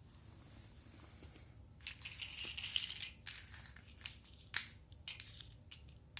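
Plastic packaging crinkling for about a second, then several sharp clicks of small parts being handled, one markedly louder about four and a half seconds in.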